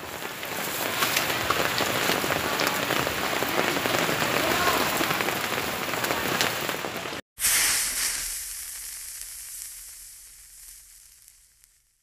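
Steady rain falling on a wet street, a continuous hiss. About seven seconds in it cuts off, and a sudden sound effect starts loud and fades away over about four seconds.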